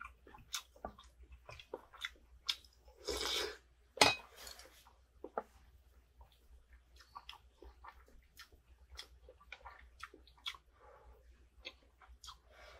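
Eating sounds: chopsticks clicking and scraping against a cast-iron pan and dishes, with chewing between them. There are many short clicks throughout, and one sharp knock about four seconds in is the loudest.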